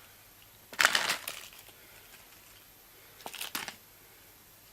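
Plastic lolly wrappers crinkling as a pet bird picks at the scattered lollies: a crackly burst about a second in and a shorter one near three and a half seconds.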